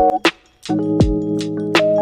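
Background music: a drum beat with deep kick hits, under held keyboard chords. The music drops out briefly about half a second in, then comes back with the chords sustained.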